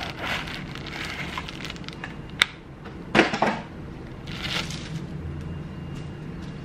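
Clear plastic bag crinkling and rustling as a pop filter is pulled out of its cardboard box and unwrapped, with a sharp click about two and a half seconds in.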